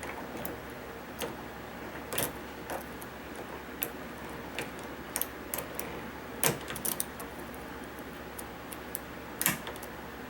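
A diamond lock pick working the pin tumblers of a Schlage deadbolt's key cylinder under tension during single-pin picking: scattered light metallic clicks and scrapes, with two sharper clicks about six and a half seconds in and near the end.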